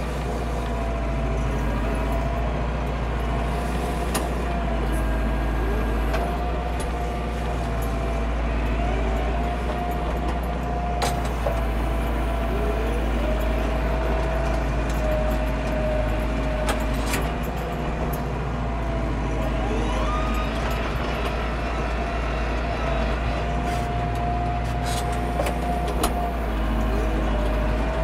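Landini Blizzard 65's Perkins 4.0-litre four-cylinder diesel running steadily while the tractor pulls a fixed-tine harrow, with a steady whine over the engine rumble. A few sharp knocks and rattles break in now and then.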